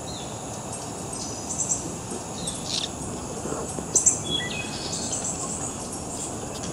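Outdoor ambience of insects trilling steadily, with scattered short bird chirps over it, the sharpest about four seconds in.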